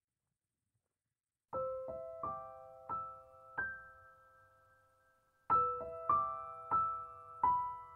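Soft solo piano music: a slow melody of single notes fading one into the next. It starts about one and a half seconds in and pauses briefly near the middle before the next phrase.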